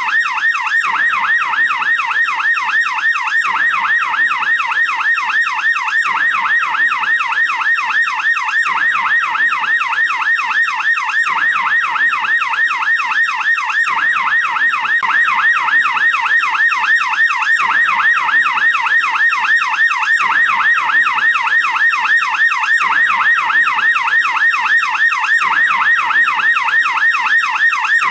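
American police car siren on its yelp setting: a rapid, continuous wail sweeping up and down in pitch several times a second without a break, a little louder from about halfway through.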